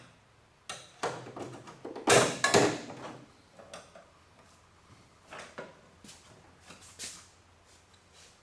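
A few short scrapes and knocks of objects being handled, the loudest about two seconds in and smaller ones later.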